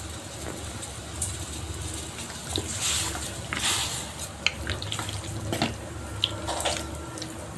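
Running and splashing water with a few light clicks, over a low steady hum.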